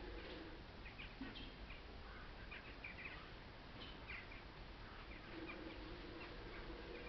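Faint bird calls: scattered short, high chirps over a quiet outdoor background. A low steady drone comes in about five seconds in.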